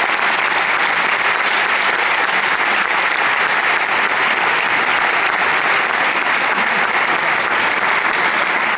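Audience applauding, a steady dense clapping that keeps up throughout.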